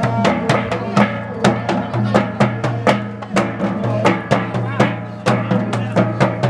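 Traditional double-headed barrel drum beaten with a stick in a quick, steady rhythm, about three sharp strikes a second, over low sustained tones, accompanying a Pangngaru war dance.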